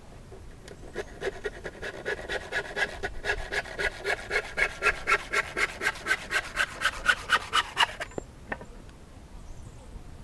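Handsaw cutting through a 2-inch-thick piece of treated timber: quick, even rasping strokes that start about a second in, grow louder, and stop about eight seconds in.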